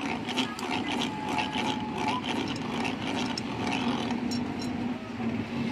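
Hand-cranked cast-iron squid press with ridged brass rollers turning, giving regular clacks that thin out after about two seconds, over a steady hum of street traffic.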